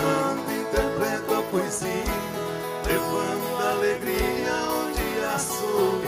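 Live country band music: acoustic guitar over drums, with a regular kick-drum thump about once a second.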